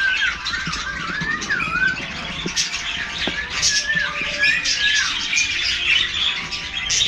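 A flock of budgerigars chattering: a dense mix of chirps and squawks, with wavering up-and-down whistles over the first couple of seconds.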